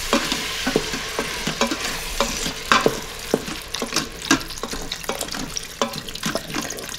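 Vegetables and flour sizzling in the hot stainless steel inner pot of an Instant Pot on sauté as chicken broth is poured in. A wooden spoon stirs through it, knocking against the pot again and again.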